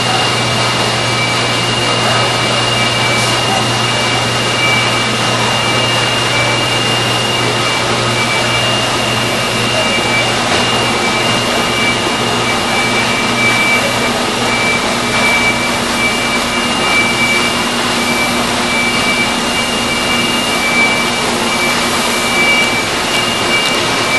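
Mark Andy 830 narrow-web flexographic label press running: a steady mechanical whir of rollers and drives, with a high whine and a low hum.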